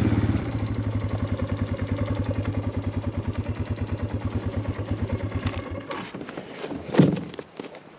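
ATV engine dropping to idle just after the start, running with an even, pulsing beat, then shut off about six seconds in. A single sharp thump follows about a second later.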